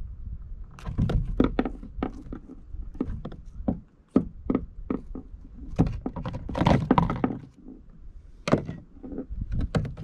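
Irregular knocks, clicks and thunks of fishing gear being handled aboard a kayak, with a denser run of handling noise about seven seconds in.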